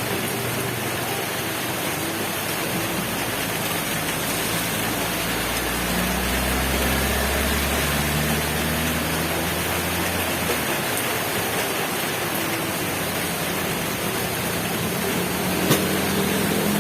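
Heavy rain falling steadily, with a motor vehicle's engine passing by as a low hum that swells and fades about a third of the way in; a single sharp tap near the end.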